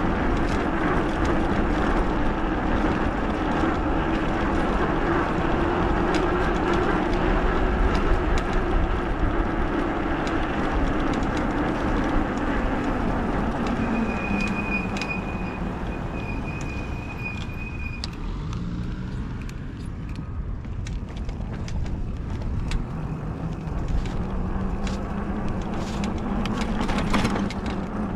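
Modded fat-tire e-bike riding along, a steady hum of motor and tyres over wind noise. About halfway through the hum drops in pitch and gets quieter as the bike slows, with a thin high squeal for a few seconds. Near the end the hum rises again as it picks up speed.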